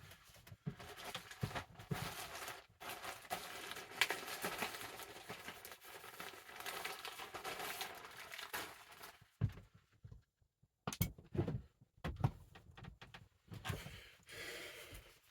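Package being torn open and its wrapping crinkled and rustled for several seconds, then a few short knocks and rustles as the contents are handled.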